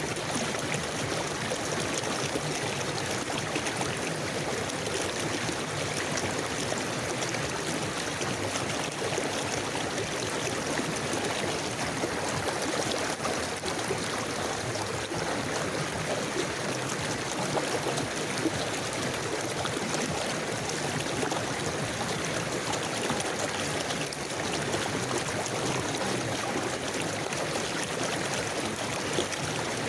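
River water flowing steadily, an even rushing with small gurgles and trickles.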